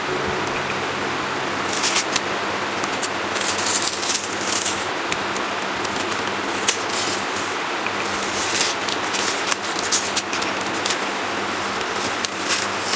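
Masking tape being peeled off a canvas, crackling and ripping in several short spells over a steady hiss and low hum.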